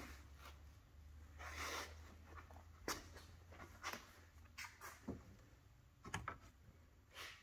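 Faint, scattered clicks and rustles of someone moving about and handling things, about one or two a second, over a low hum.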